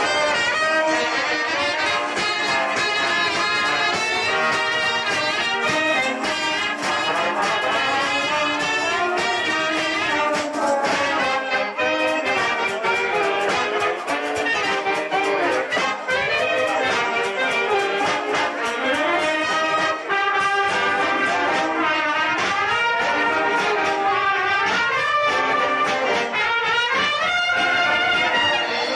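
A wind band playing a tune, with brass instruments carrying the music at a steady level.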